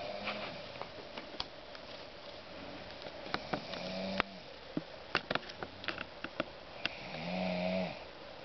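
Slow snoring: three snores about four seconds apart, the last the loudest, with scattered light clicks in between.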